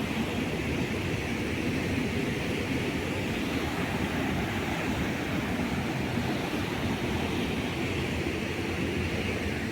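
Steady rush of fast-flowing floodwater mixed with wind buffeting the microphone, a dense unbroken noise with a heavy low rumble.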